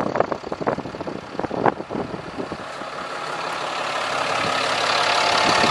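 Vehicle engine running, growing steadily louder over the last three seconds, after a couple of seconds of scattered clicks and knocks.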